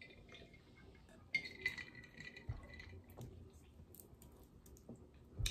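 Quiet table sounds of eating snow crab legs by hand: scattered small clicks of shell being picked apart, and a glass jar clinking on the table with a short high ring about a second in.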